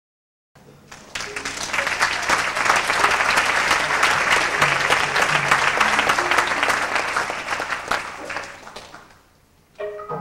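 Audience applauding, swelling within the first second and dying away about nine seconds in. Near the end a Burmese traditional ensemble starts playing.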